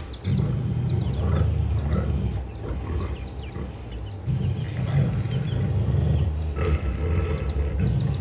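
Two giant schnauzers growling deep and steadily while guarding food. The growl eases off about two and a half seconds in and swells back about four seconds in.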